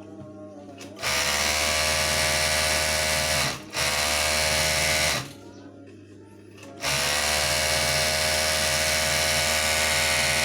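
Overlock (serger) sewing machine running at speed, a steady motor hum and whir, in three runs: from about a second in with a brief break near three and a half seconds, stopping around five seconds, then starting again near seven seconds and running on.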